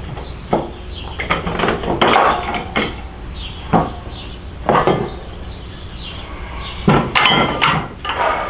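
Metal tools and motorcycle hardware clanking and knocking in irregular bursts, some strokes single and some in quick clusters.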